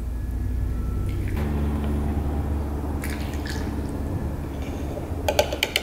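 Fertilizer solution poured through a plastic funnel, first from a plastic gallon jug into a small glass flask, then from the flask into a plastic water bottle, with a steady gurgle. A quick run of light clicks and taps near the end.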